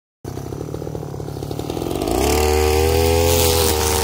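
STIHL FR3001 backpack brushcutter's two-stroke engine idling with a pulsing beat, then throttled up about two seconds in to a steady, higher-pitched full-speed run.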